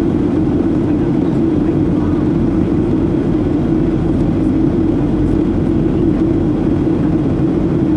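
Steady cabin noise inside a Boeing 737-800 in descent, heard from a window seat over the wing: the even rumble and hum of the CFM56-7B engines and airflow over the fuselage, unchanging throughout.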